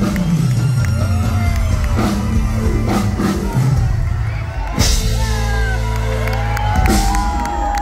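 Live band music played loud through a PA, with a drum kit and deep bass keeping a steady beat, and whoops from the crowd.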